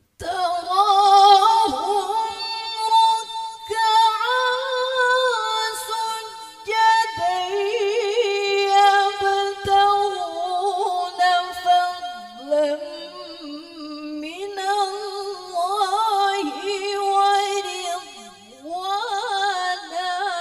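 A woman reciting the Qur'an in the melodic tilawah style into a handheld microphone: long held notes with wavering, ornamented turns, sung in phrases a few seconds long with brief breaths between. The voice starts just after the silence at the very beginning.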